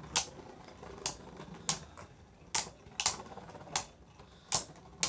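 Beyblade Burst spinning tops, Rage Longinus and Fafnir, colliding as they spin in a plastic stadium: about eight sharp clicks of the tops striking each other, irregularly spaced, roughly one every half second to a second.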